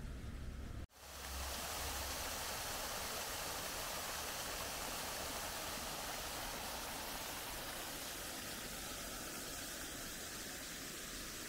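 A steady, even rushing noise, like flowing water or wind, that cuts out briefly about a second in and then runs on unchanged.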